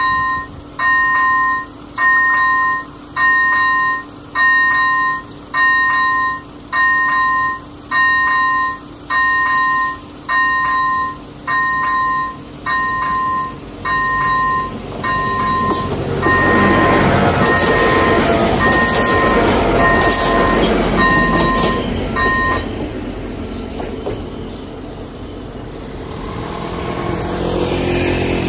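Electronic bell of an AŽD 97 level-crossing warning signal ringing, a regular repeated ding. About sixteen seconds in, a passenger train runs over the crossing with a loud rush and sharp clicks of wheels over the rails; the bell stops soon after and the train noise fades, with a road vehicle's engine rising near the end.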